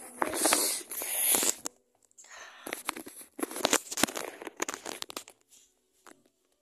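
Rustling, crinkling handling noise from a handheld phone being jostled and rubbed against clothing, with sharp clicks mixed in. It comes in two stretches, a short break after nearly two seconds, and dies away about a second before the end.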